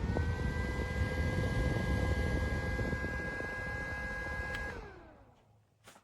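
JISULIFE mini handheld USB fan running, its motor whining steadily with a low rumble of air against the microphone. A button click at the start steps the whine up to a higher speed. About four and a half seconds in, another click switches it off and the whine falls away as the blades spin down, with a further click near the end.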